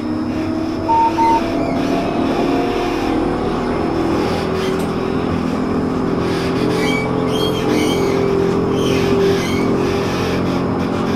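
Electric tram running on its rails: steady wheel and running noise with the whine of the traction motors, a tone rising slowly in the first few seconds as it picks up speed. Two short high beeps sound about a second in.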